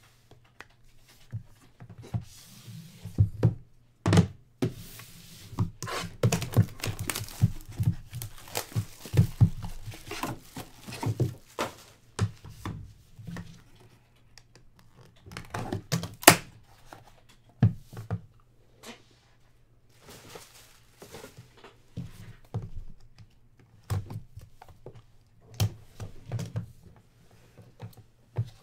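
A trading-card hobby box being unsealed and opened by hand: rustling, crinkling and tearing of its wrapping and seal, with scattered thunks and taps as the box and its purple inner card case are handled. The handling is dense in the first half, with the sharpest tap a little after halfway, and the taps grow sparser toward the end.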